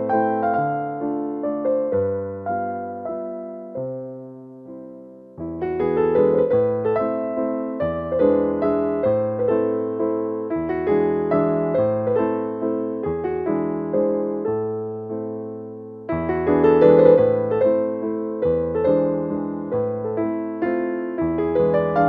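Background piano music: a soft keyboard melody over chords. It thins out about four seconds in and starts a new phrase at about five and a half seconds, and again at about sixteen seconds.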